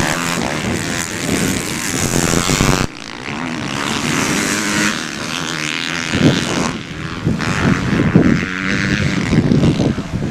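Motocross dirt bike engines racing on a dirt track, revving up and falling off again and again. One bike is loud and close at first; others are farther away.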